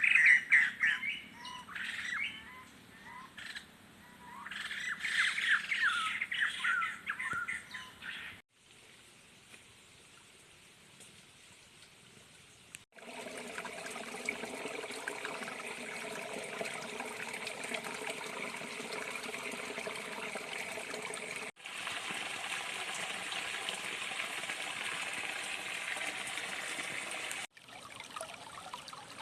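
Birds chirping and calling for the first eight seconds or so. After a short quiet gap, a steady rush of stream water.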